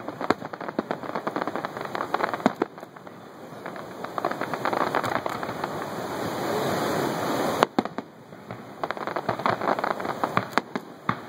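Aerial fireworks going off: many sharp pops and bangs, with a dense crackling that builds about four seconds in and stops suddenly after about seven and a half seconds, then scattered pops again.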